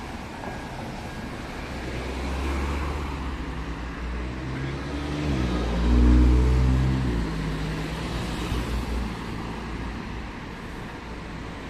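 Road traffic passing close by. About six seconds in, a car passes nearest and loudest, its engine note dropping in pitch as it goes by.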